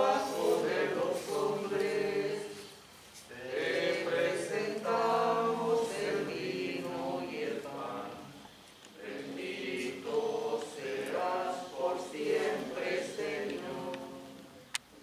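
Church choir singing a Spanish offertory hymn about the bread and wine, in sung phrases with short breaks between them. The singing fades near the end, and a single sharp click follows.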